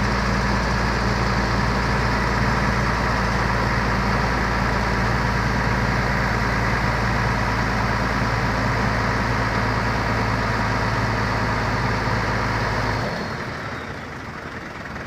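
Heavy engine idling steadily with a deep, even hum, then shutting off about 13 seconds in.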